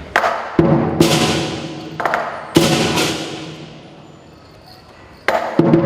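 Lion dance percussion band of drum, gong and cymbals playing a few separate accented crashes that ring out and fade slowly, then breaking into continuous fast playing near the end.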